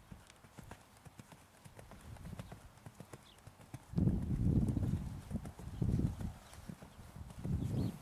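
A horse's hoofbeats at a canter on an arena's sand footing, a steady run of dull knocks. From about four seconds in, loud bursts of low rumble come and go over them.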